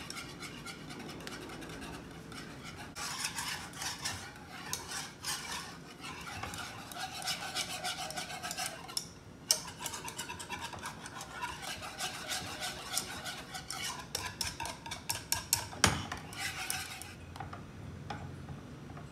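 Metal balloon whisk stirring a thick cream in a metal saucepan, its wires scraping and clinking against the pan in quick, rhythmic strokes. A sharp knock against the pan comes near the end, then the stirring turns quieter.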